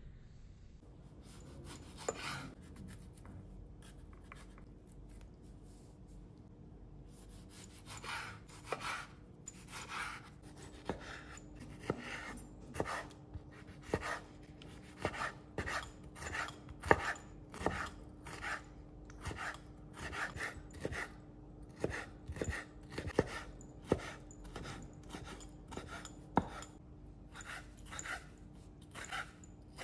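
Chef's knife slicing and dicing a tomato on a wooden cutting board, the blade knocking on the wood. After a few sparse knocks, the chopping comes steadily about once or twice a second.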